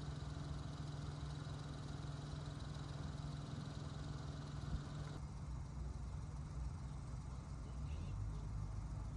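Steady outdoor background noise with a constant low hum and rumble; the higher part of the sound drops away suddenly about five seconds in.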